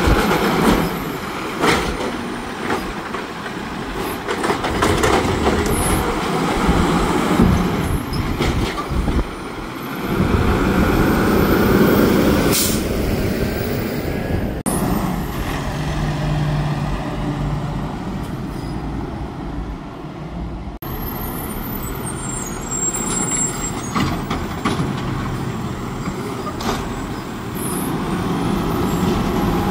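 Autocar WX64 refuse truck with an Amrep automated side-loader arm working: the engine runs under hydraulic load as the arm lifts and dumps a yard-waste cart, with several short air-brake hisses, and the engine gets louder for a few seconds as the truck moves off.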